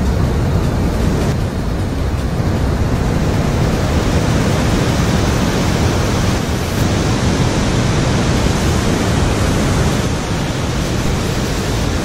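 Gullfoss waterfall: heavy white water rushing over the rock steps close by, a loud, steady roar of water noise with a strong low rumble.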